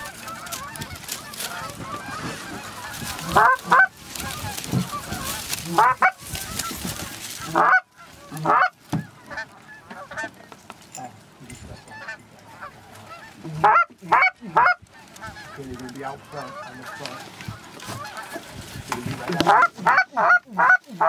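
Canada goose honking: loud short honks in clusters, with a quick run of about half a dozen near the end, over a rushing noise in the first third.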